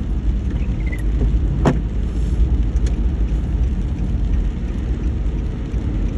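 Car driving, heard as a steady low road rumble, with a single sharp click about one and a half seconds in.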